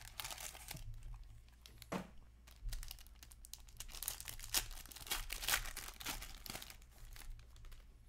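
A 2021-22 Upper Deck Black Diamond hockey card pack's wrapper being torn open and crinkled by hand: a run of irregular crackles and rustles.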